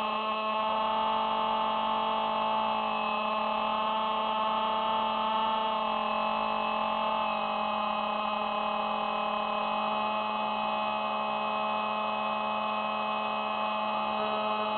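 SpyHawk RC spy plane's motor and propeller whining steadily in flight, picked up by its onboard camera, with slight dips in pitch around the middle.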